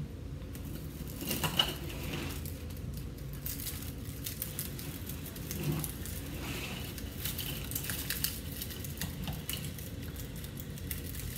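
Soft rustling and scattered light clicks of artificial pine greenery and floral wire being handled and wired onto a grapevine wreath, over a steady low hum.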